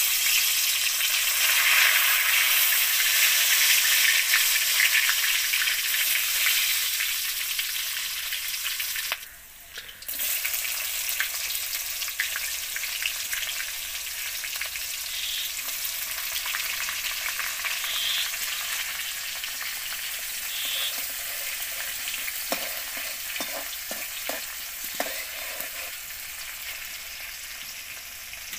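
Hot oil sizzling steadily in a metal karahi as bay leaves, whole spices and sliced onions fry, stirred with a metal spatula. The sizzle drops away briefly about nine seconds in, and a few spatula knocks against the pan come later on.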